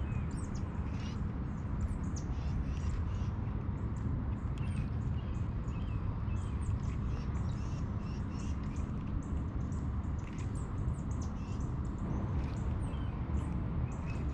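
Birds chirping and calling, many short high notes scattered throughout, over a steady low rumble.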